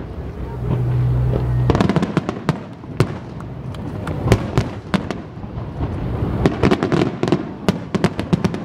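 Aerial fireworks shells bursting in a rapid run of sharp bangs and crackles. A low steady hum is heard during the first second or two.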